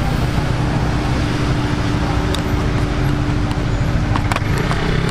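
Steady low rumble and hiss of street background noise with a constant hum running under it, and a few sharp clicks in the second half.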